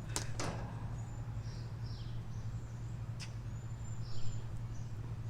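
Wild birds chirping in short, scattered high calls and sweeping notes over a steady low rumble.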